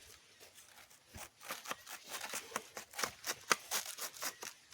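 Poultry feed being mixed by hand: an irregular run of crunchy rustles and scrapes, several a second, starting about a second in.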